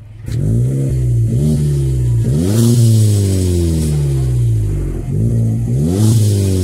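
Volkswagen Polo with its muffler removed (straight pipe past the catalytic converters), its engine revved from idle in several quick blips. Each rev climbs fast and sinks back slowly through a loud, open exhaust note.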